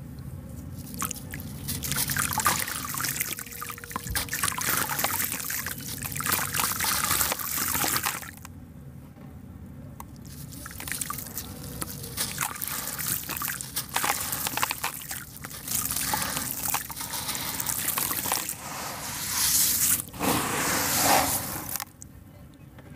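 A sand-and-cement (concrete) block being squeezed and crumbled by hand into a basin of water: gritty crunching mixed with sloshing and trickling water. It comes in irregular stretches, with a quieter pause about eight seconds in and the loudest stretch near the end.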